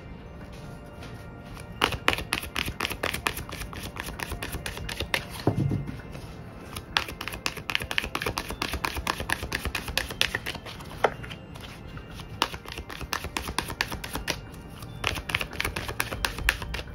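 A tarot deck being shuffled by hand: a dense, quick run of card clicks and slaps, thickening about two seconds in, over soft background music.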